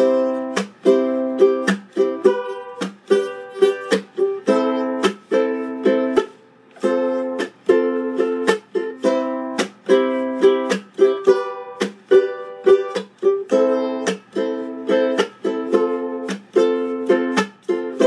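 Oscar Schmidt OU-26T tenor ukulele strummed in a steady rhythm. Many chords are cut off short by muting the strings, giving a choppy, percussive strum.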